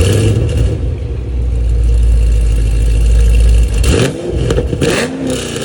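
Modified Chevrolet Camaro V8 with long-tube headers revving: a loud, deep exhaust note held for nearly four seconds, then dropping off, followed by a couple of quick rev blips.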